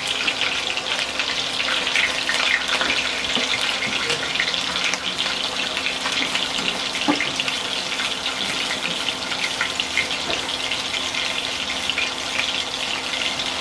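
Meatballs shallow-frying in hot oil in a glass pan: a steady, dense sizzle with many small pops and crackles of spitting oil. A low steady hum sits underneath.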